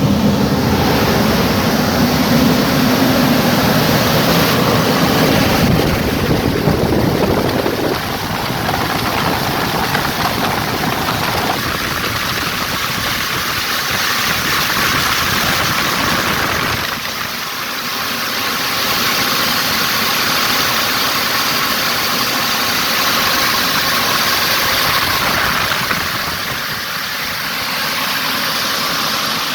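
Volvo EC300E excavator's diesel engine running, its sound stepping down about eight seconds in and again around seventeen seconds, then rising and easing off. The machine has just been repaired of an exhaust-aftertreatment fault that had limited its power.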